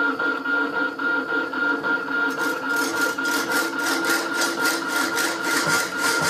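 Rapidor power hacksaw running: steady motor and drive hum, and from about two seconds in the blade cutting into a steel box section with regular rasping strokes. The saw cuts only on the forward stroke, with the blade lifted on the backstroke: the damper is working correctly.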